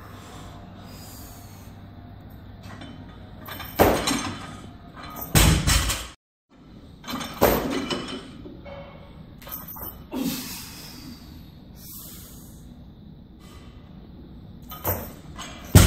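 Barbell loaded with bumper plates during clean and jerk lifts: a series of thuds and plate clanks, the loudest about five and a half seconds in and right at the end.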